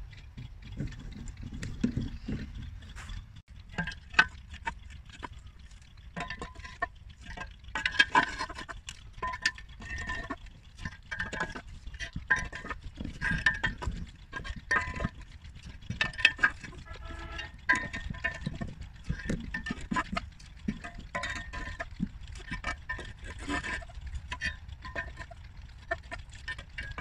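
Homemade steel pole-climbing shoes clanking against a concrete pole as they are stepped up it: irregular metallic clinks and knocks, many with a brief ring, over a steady low rumble.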